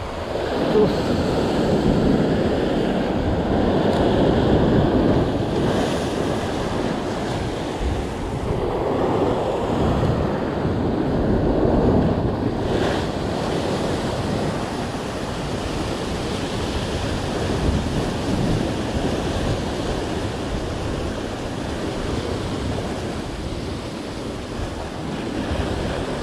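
Sea surf breaking and washing against a rocky shoreline in rolling surges, louder a few seconds in and again around ten seconds in, with wind buffeting the microphone.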